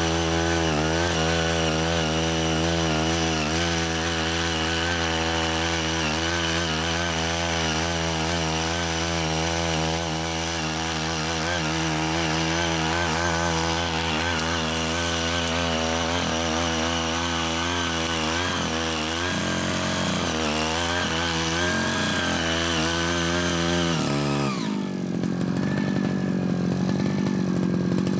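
Small gasoline engine of a CY80 mini hand tiller (cultivator) running steadily under load as its rotary tines churn the orchard soil, the engine note wavering slightly as the load changes. Near the end the engine note changes abruptly and runs on at a different steady pitch.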